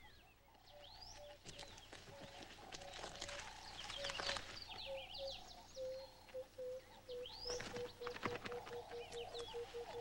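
Faint birdsong: a dove's long run of short, low coos, falling slightly in pitch and quickening toward the end, with quick high rising chirps from other birds such as starlings.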